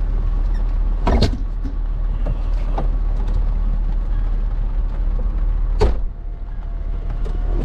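Two sharp knocks as a folding wheelchair is handled and stowed in a car, the second the loudest, over a steady low rumble; the background drops right after the second knock.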